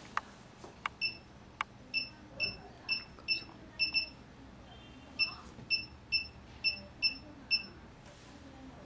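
Touchscreen keypad of a GL3 oxygen facial machine beeping once for each key pressed as a password is entered: about a dozen short high beeps in two runs with a pause between them. A few sharp clicks come before the first beeps.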